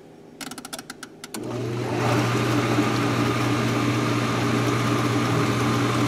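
A GE Potscrubber 970 dishwasher's mechanical timer knob clicks as it is turned. About a second and a half in, the dishwasher motor starts and runs with a steady hum, running without a load because no water has come in yet.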